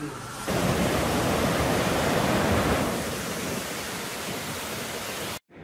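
Steady outdoor rushing noise, starting about half a second in, a little softer after about three seconds, and cutting off suddenly near the end.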